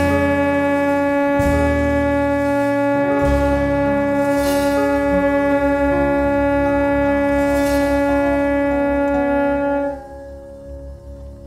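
Alto saxophone holding one long final note over an accompaniment with a pulsing bass; the saxophone stops about ten seconds in and the accompaniment carries on more quietly.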